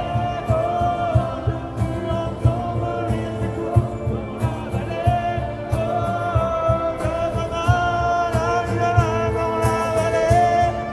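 Live band playing a song: a sung melody over a steady drum beat.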